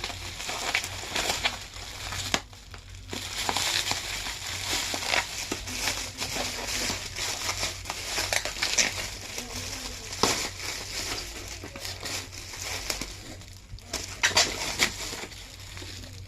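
Packaging being crumpled and crinkled in the hands, an irregular crackling that pauses briefly twice.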